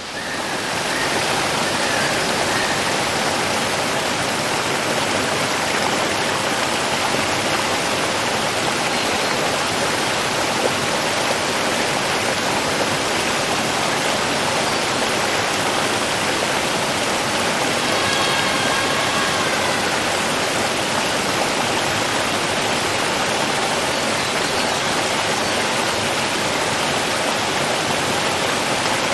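Running water rushing in a steady, unbroken hiss.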